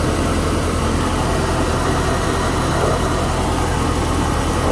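Volvo Penta 7.4-litre V8 marine inboard engine running at a steady idle, heard close up in the open engine bay.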